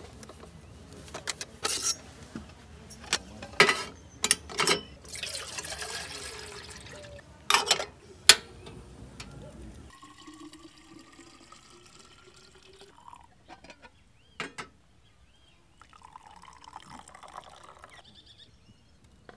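Water being poured for chimarrão, with sharp knocks and clicks of the gourd and kettle being handled, the loudest about four and eight seconds in. Later a quieter pour whose pitch rises slowly as the vessel fills.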